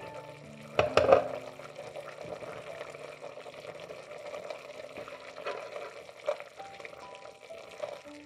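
Food frying in a hot pan: a sizzle starts suddenly and loudly about a second in, then keeps up steadily, with soft background music under it.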